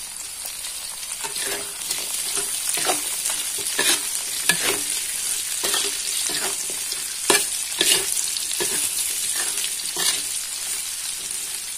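Oil sizzling in a metal wok as beef meatballs, tempeh and chillies are stir-fried, with a spatula scraping and knocking against the pan about once a second.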